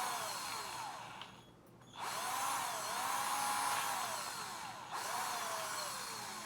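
Power drill boring a screw hole through the hard plastic shell of a suitcase. The motor runs in three spells with short pauses between them, its speed rising and falling with the trigger.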